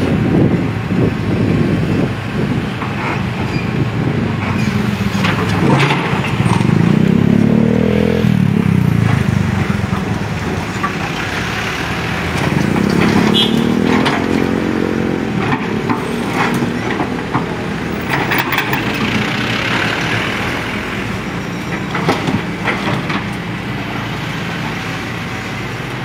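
Hitachi hydraulic excavator at work: its diesel engine revs rise and fall as the boom and bucket move, with repeated knocks and scraping as the bucket digs into broken concrete rubble on the pavement.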